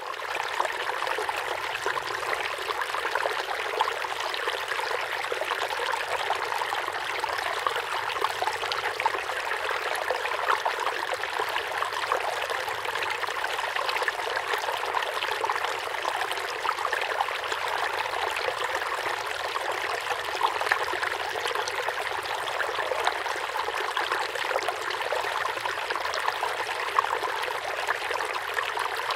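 Water running steadily: a continuous, even trickling and splashing with no break.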